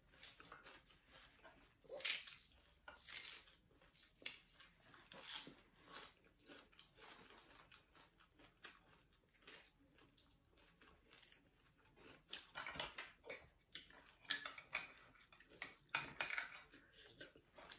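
Faint eating sounds: chewing and mouth noises from a mouthful of raw oyster and fresh greens, in short irregular crackles that come thicker near the end.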